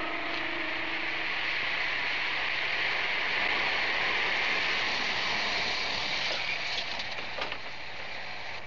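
Police pickup truck rolling past on a cobbled street: a steady hiss of tyres and road noise that swells as the truck comes closest, with a few light clicks near the end.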